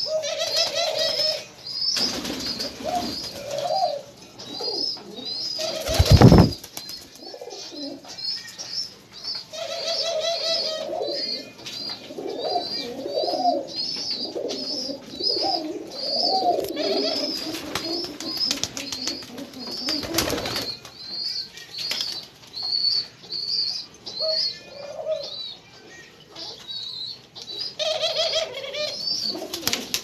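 Caged doves and pigeons cooing in repeated low phrases, over a constant run of high, quick chirps from small birds. Two loud bursts of noise break in, the loudest about six seconds in and another around twenty seconds.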